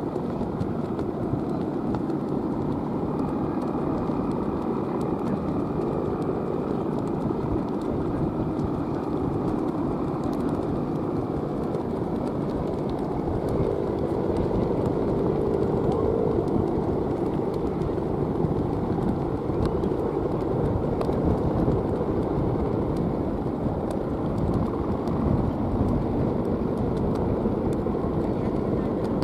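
Steady wind noise buffeting the microphone, a low, even rumble with faint voices underneath.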